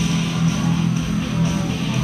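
Music with guitar playing over a hockey arena's sound system.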